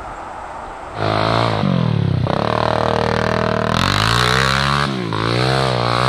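ATV (quad bike) engine revving, its pitch falling and rising as the throttle works. It comes in loud about a second in, after a steady rushing noise.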